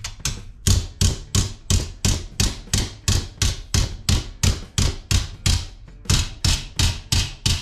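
Hammer striking a folded sheet-steel brace held in a vise, a steady run of sharp metallic blows at about three a second, flattening and setting the fold.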